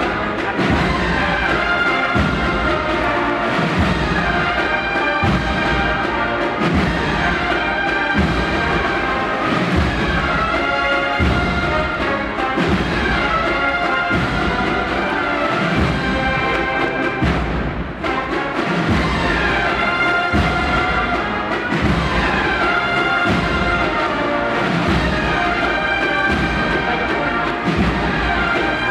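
Procession brass band with drums playing a march, brass lines held over steadily repeated bass drum strikes.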